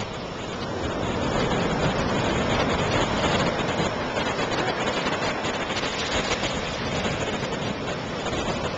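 Ocean surf washing up the beach: a steady rushing noise that grows louder over the first two seconds and then holds.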